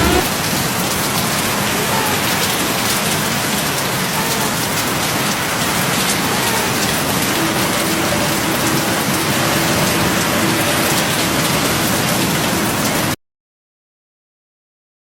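Heavy rain pouring down in a steady, dense hiss, cutting off abruptly about two seconds before the end.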